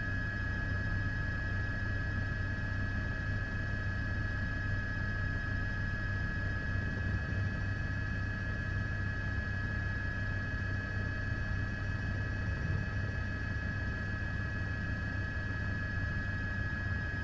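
Steady helicopter drone: a constant high whine over a low hum and a wash of noise, unchanging throughout.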